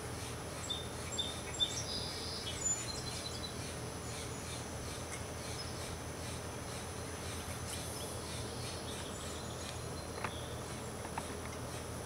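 Steady outdoor background noise with a few short, high bird chirps in the first three seconds, then two faint clicks near the end.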